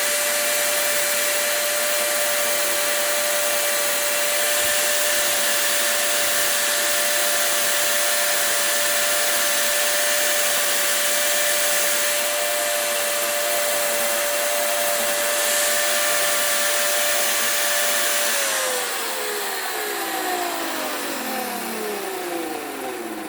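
Dremel rotary tool with a carbide bit running at high speed with a steady whine. Near the end it is switched off and the whine falls in pitch as it spins down.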